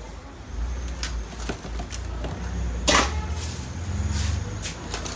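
Fresh corn cobs being husked by hand: a run of short crackling tears and rustles as the husks are stripped off, the loudest about three seconds in, mixed with a plastic bag rustling.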